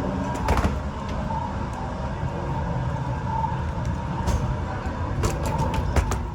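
Steady airliner hum with a held whine and a low rumble while passengers deboard, with a few sharp knocks and clicks of footsteps and bags.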